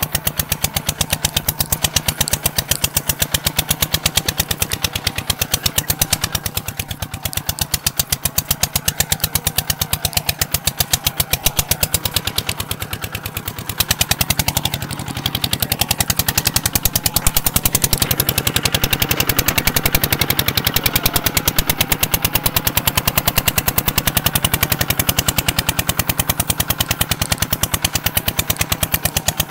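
Kubota ZT 180 single-cylinder diesel engine running, its exhaust giving a rapid, even train of sharp pops.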